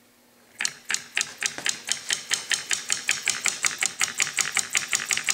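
Homemade solenoid engine clattering: its solenoid plunger clacks rapidly and evenly, about seven times a second, starting about half a second in. The engine is still a work in progress and not yet running as intended.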